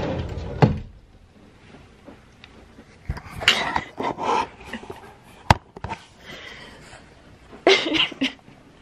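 Stifled giggling close to the microphone, in short bursts, with rustling and knocks from the camera being handled and a sharp click about halfway through.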